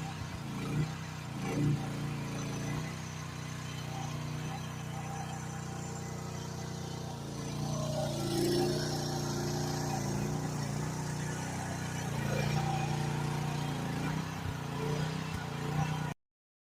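Mini excavator engine running steadily, with a few knocks in the first two seconds and louder working from about halfway through. The sound cuts off suddenly near the end.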